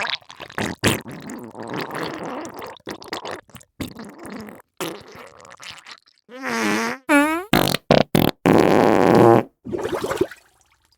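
A run of fart and diarrhoea sounds: rapid spluttering bursts, then two squeaky farts that bend in pitch and a few short sharp ones. The loudest is a long splutter about nine seconds in, and the sounds stop shortly before the end.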